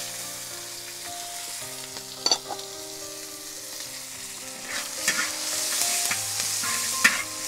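Sliced garlic and shallots sizzling in hot oil in a large iron wok while a metal spatula stirs them. The frying gets louder about five seconds in, with a few sharp scrapes of the spatula against the pan.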